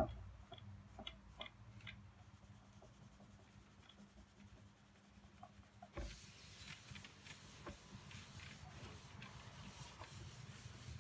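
Faint rubbing and light scuffing of a cloth buffing beeswax into the end-grain top of a timber slab, with small ticks. A faint steady hiss comes in about six seconds in.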